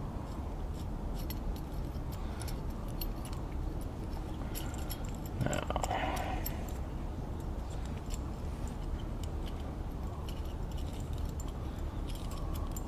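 Light metallic clicks and clinks of small parts as the contactor and resistor pack of a Singer 15-91 sewing machine foot pedal are handled and fitted together by hand, over a steady low hum.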